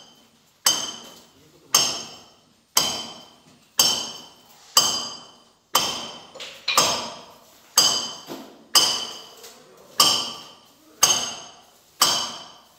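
Hammer striking metal in a steady series of about one blow a second, each blow ringing out and fading before the next.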